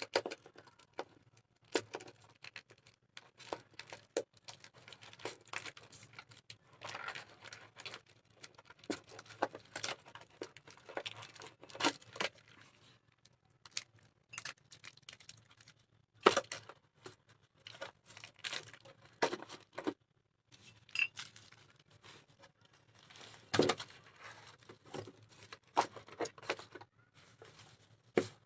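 Plastic packets of two-part epoxy clay being handled: crinkling and tearing, with scattered sharp clicks and taps.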